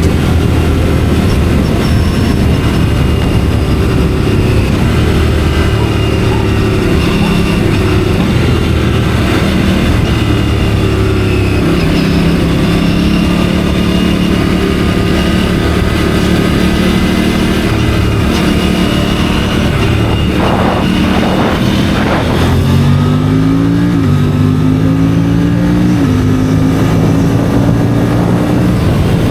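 Aprilia RS 457's parallel-twin engine running at fairly steady road revs. Near the end it accelerates: the engine note climbs, dips at an upshift, and climbs again twice.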